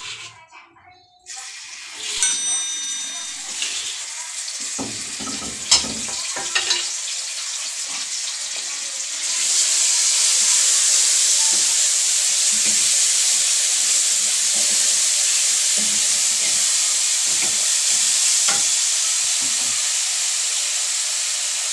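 Food frying in hot oil in a pan: a quieter sizzle with a few sharp knocks at first, then from about nine seconds in a louder, steady sizzle that holds.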